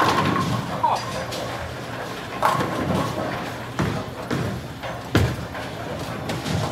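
Bowling pins crashing with a ringing clatter as a ball strikes them at the very start, then another pin crash and a heavy thud of a bowling ball on the lanes, over voices and a steady machine hum.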